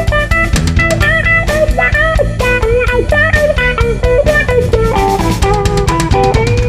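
Background rock music: a guitar plays a melody with bent notes over bass guitar and drums.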